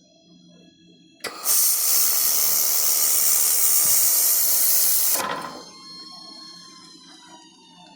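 A 1500 W laser welding machine firing: a loud, even hiss for about four seconds that starts about a second in and cuts off. Afterwards a faint high whine slowly falls in pitch and fades.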